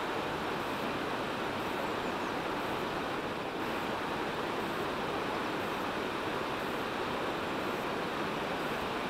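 Steady, even rushing noise of the Guadalhorce river running through the rocky gorge.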